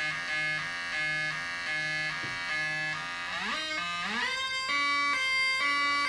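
Two-tone siren from a pair of 555 timer ICs driving a small loudspeaker: a low and a high tone alternating about twice a second. About three and a half seconds in, the pitch glides upward as a potentiometer is turned, and the two tones carry on alternating at a higher pitch.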